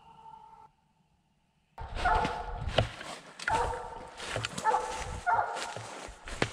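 Redtick English coonhound barking treed, a loud repeated bark about once a second starting about two seconds in: the sign that she has a raccoon up the tree.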